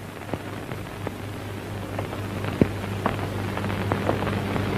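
Worn old film soundtrack between lines of dialogue: a steady hiss over a low hum, dotted with irregular crackles and pops.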